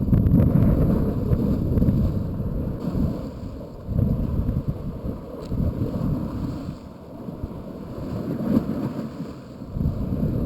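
Wind buffeting the microphone in gusts, a low rumble that swells and fades, with water moving against the seawall beneath it.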